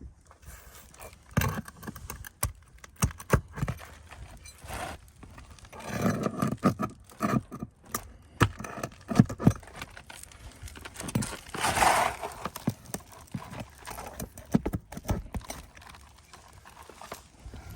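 Irregular knocks, taps and scraping from work on an asphalt-shingle roof: shingles and tools being handled and set down. There is a longer scrape or rustle about six seconds in and another about twelve seconds in.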